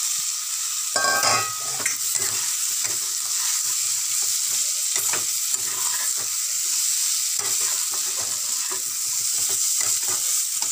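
Oil and spiced onion-tomato masala sizzling in a pan, with a metal spatula stirring and scraping through it. About a second in, a louder burst as boiled potatoes go into the pan, then repeated scrapes as they are turned into the masala.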